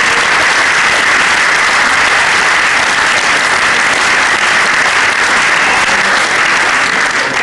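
A large audience applauding steadily in an assembly hall, a dense, even wash of clapping.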